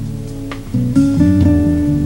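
Background music: a guitar playing sustained chords, with new, louder notes entering about halfway through.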